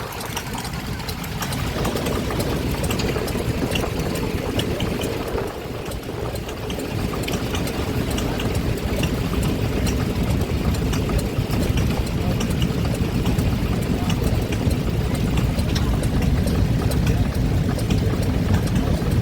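Vintage stationary engine running steadily, a fast even train of low exhaust beats that grows louder a couple of seconds in.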